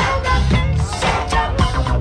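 Background music with a steady bass line and drum beat.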